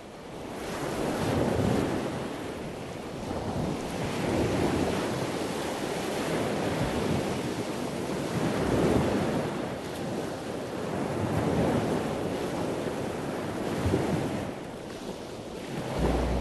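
Ocean surf breaking on the shore, a steady rush that swells and eases every few seconds, with wind buffeting the microphone.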